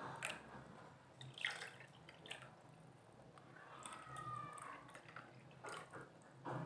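Cold water poured in a thin stream from a stainless-steel bottle into small glass bowls, faintly splashing and trickling as each bowl fills.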